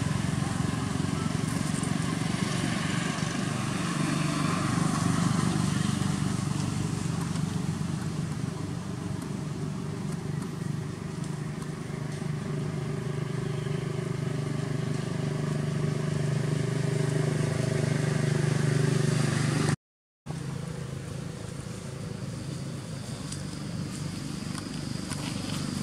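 Steady low drone of motor vehicle engines, slowly rising and falling in pitch. It drops out for about half a second near the end and comes back quieter.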